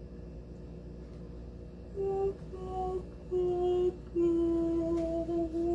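A woman humming a slow tune: four held notes starting about two seconds in, each a little lower than the one before, the last held longest.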